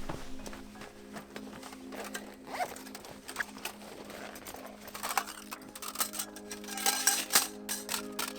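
Camping gear being handled: rustling, small clicks and a zip-like rasp, busiest and loudest around five to seven and a half seconds in, over soft background music with sustained notes.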